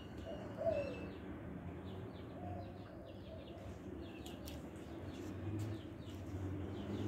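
Dove cooing at intervals, with small birds chirping in the background.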